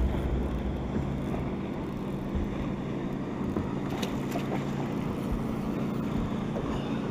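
Steady low hum of a boat motor with wind on the microphone. A short splash about four seconds in as the hooked bass jumps at the surface.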